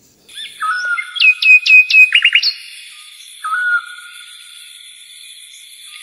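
A bird singing clear whistled notes. It gives hooked whistles, then a quick run of falling notes about two seconds in, and one more hooked note later, over a thin, steady high tone.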